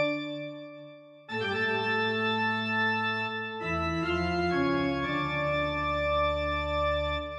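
Background music of long held chords: one fades away at the start, a new chord comes in about a second in and another changes in about three and a half seconds in, fading again near the end.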